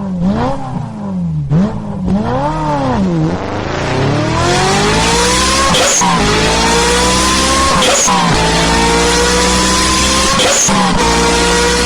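Car engine revved twice, then accelerating hard and climbing in pitch through three gear changes, with a brief drop in pitch at each shift.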